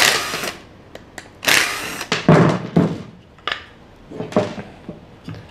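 Cordless drill-driver whirring in two short bursts as screws are backed out to take a wooden assembly apart, followed by several sharp knocks of loose pine boards being handled and set down.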